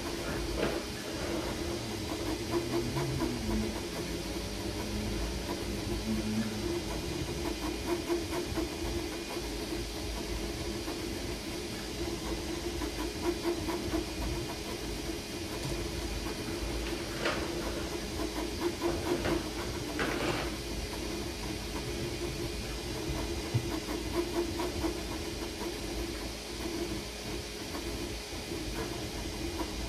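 Creality Ender 3 V3 KE 3D printer printing: steady fan hiss and hum, with the stepper motors sounding in shifting pitches over the first several seconds. Two short clicks come about two thirds of the way through.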